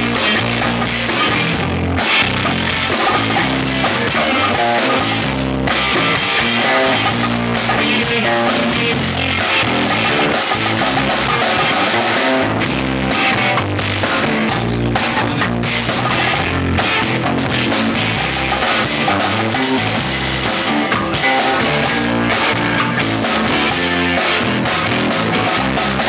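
Rock band playing live, guitar and drum kit, loud and continuous.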